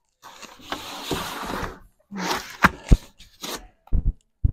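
Packing material around a new bicycle being torn and pulled away: a crinkling, tearing stretch for the first second and a half, then scattered sharp clicks and a few dull knocks as parts are handled.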